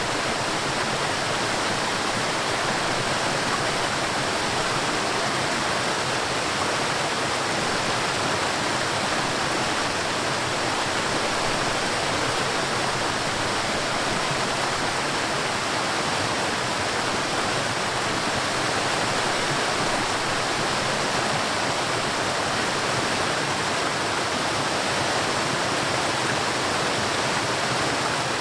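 Water of a small waterfall and stream rushing steadily, a constant even hiss-like noise with no change in level.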